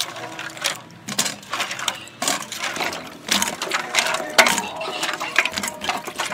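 Cut screw pine fruit pieces being tossed and mixed by hand in a metal bowl: irregular clicks, knocks and scrapes as the pieces hit the bowl and each other.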